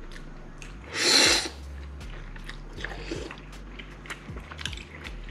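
A man slurping a mouthful of wide kalguksu noodles from spicy beef soup about a second in, one loud half-second slurp, then chewing with small wet mouth clicks.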